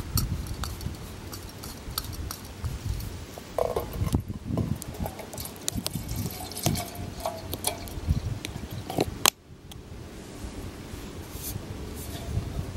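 Camp stove gear being handled: clicks and clinks as a burner is screwed onto a gas canister, then water poured from a plastic bottle into a metal mug. A single sharp knock comes about nine seconds in.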